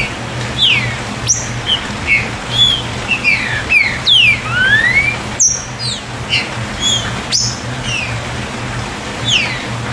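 Green-winged saltator (trinca-ferro) singing a busy run of short whistled notes, quick rising and falling slurs. Three sharp clicks and a steady low hum sit underneath.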